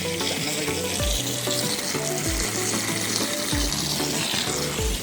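Background music with a steady beat, about one bass thump a second, over the steady rush of a small waterfall.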